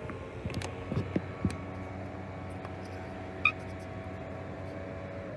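Tennis balls bouncing and being struck on an outdoor hard court: a few short pocks early on and one sharper pock about three and a half seconds in, over a steady low hum.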